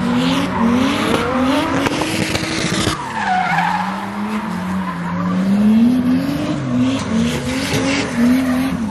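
A car drifting: its engine revs up and down over and over while the tires screech and smoke against the pavement. The revs drop briefly about three seconds in, then climb again.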